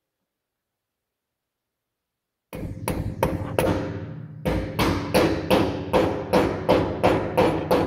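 Silence, then about two and a half seconds in a run of sharp metallic taps, roughly three a second with a brief pause partway, from a hammer tapping the calibration weight onto the outer edge of the wheel rim on the balancer. A low steady hum sits beneath the taps.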